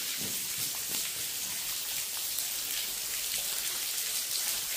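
Water raining down a wet brick ventilation shaft of a railway tunnel: a steady hiss of falling water with many small drops splashing.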